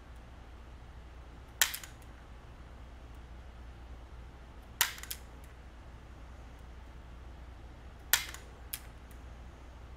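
A pistol dry-fired three times, about three seconds apart. Each pull gives a sharp click of the hammer or striker falling on an empty gun, followed a moment later by a fainter click.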